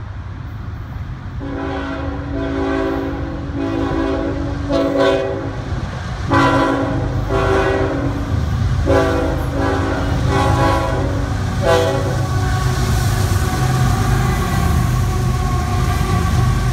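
Freight locomotive's horn sounding a series of long and short blasts for about ten seconds, over the low steady rumble of the approaching diesel locomotives, which grows louder. After the last blast, steady wheel-and-rail noise of the passing train.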